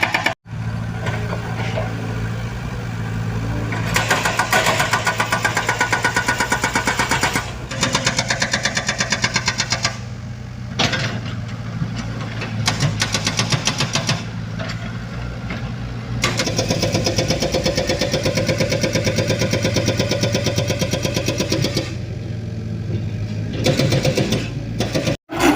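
Diesel engine of construction machinery running steadily, its level rising and easing every few seconds as the work loads it. The sound cuts out briefly about half a second in and again near the end.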